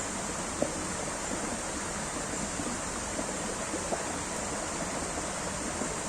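Flowing water of a stream or cascade: a steady rushing hiss with occasional brief pops.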